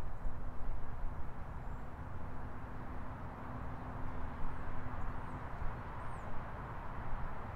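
Steady rumble of city road traffic. A low, even hum holds for the first five seconds or so and then stops. A few faint, high bird chirps come near the middle.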